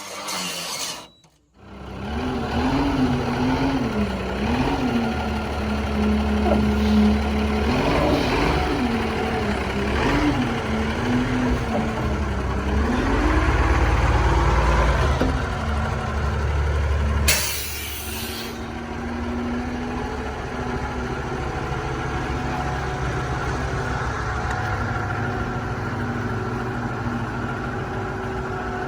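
Semi truck's diesel engine running, its pitch rising and falling again and again through the first half. About seventeen seconds in there is a short loud air hiss, like an air brake, and then the engine runs more steadily.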